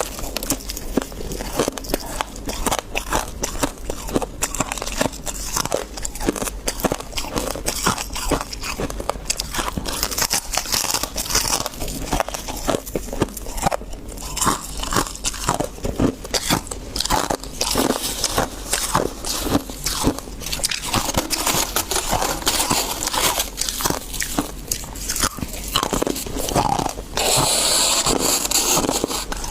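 Freezer frost being bitten and chewed close to the microphone: dense, irregular, squeaky crunches. Near the end there is a steadier, hissier stretch.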